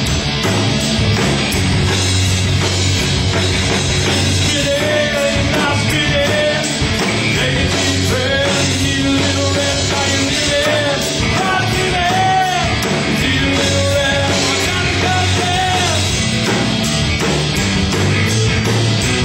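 Live rock band playing at steady full volume: electric guitars through amplifiers over a drum kit, with a melody line that bends up and down in pitch.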